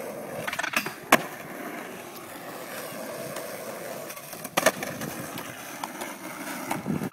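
Skateboard wheels rolling on asphalt, with sharp clacks of the board striking the ground about a second in and again around four and a half seconds in.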